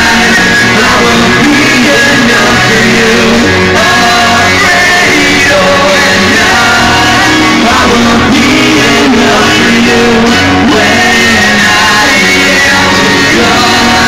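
Loud live rock band playing: electric guitar and drums under a male singer on microphone.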